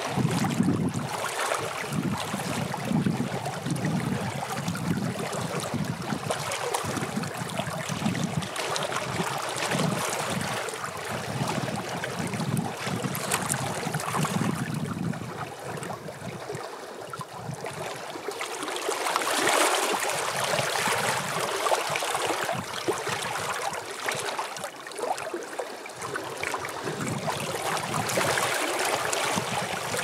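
Small wind-driven lake waves lapping and splashing against shoreline stones in a continuous wash of water. The sound comes in uneven low surges through the first half and swells louder for a couple of seconds about two-thirds of the way in.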